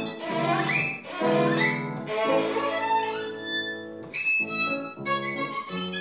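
Violin and piano duo playing, the violin sliding quickly upward twice in the first two seconds over steady piano chords.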